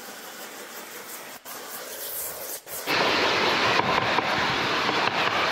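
Pump-up pressure sprayer hissing as it mists cleaner through its wand nozzle. The spray is faint at first with two short breaks, then much louder from about three seconds in.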